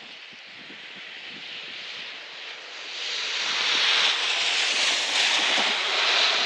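A passing vehicle's tyres hissing on the wet, slushy road: the noise swells from about three seconds in and fades near the end.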